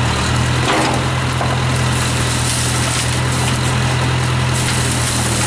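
Case 580 backhoe's engine running steadily, with a short knock a little under a second in.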